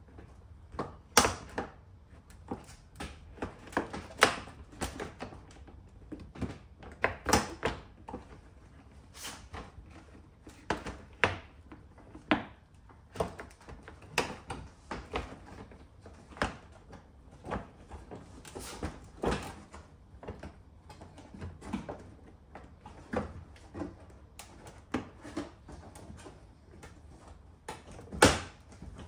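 Hard plastic car-bumper trim being handled and pressed into place by hand: irregular clicks, taps and knocks, with one sharper knock near the end.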